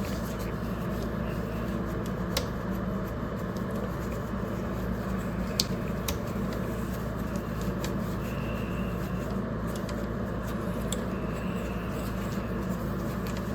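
Steel wool scrubbing the face of an old CB radio to polish it: a steady rubbing hiss over a low hum, with a few small clicks.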